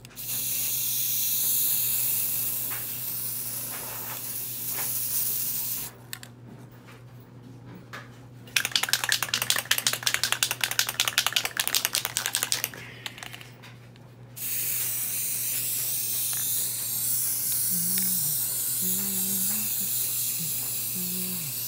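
Aerosol can of silver spray paint hissing in a long spray of about six seconds, and again for the last seven seconds or so. In between, a few seconds of fast rattling as the can is shaken, its mixing ball clattering inside.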